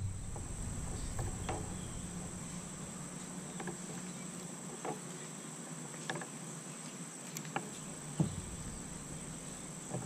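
Steady high-pitched insect chorus, with a few faint clicks and taps as small metal and plastic parts are handled close by.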